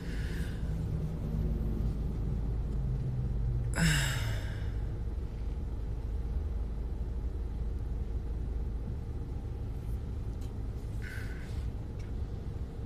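Steady low rumble of a car riding in slow traffic, heard from inside the cabin. A short sigh with a falling voice about four seconds in.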